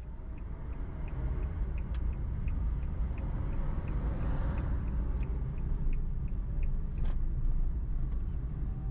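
Car driving with a steady low rumble of engine and road noise, while the turn signal clicks about three times a second through the turn and stops about six and a half seconds in. Two sharp clicks stand out, one about two seconds in and a louder one about seven seconds in.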